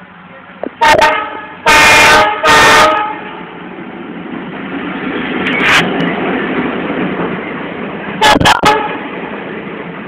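Indian Railways WDP4 diesel locomotive sounding its air horn as it comes up and passes close by. There is a short honk, then two longer blasts, a brief honk, and a quick run of three short toots near the end, all very loud. Under them is the steady rumble of the locomotive and coaches rolling past.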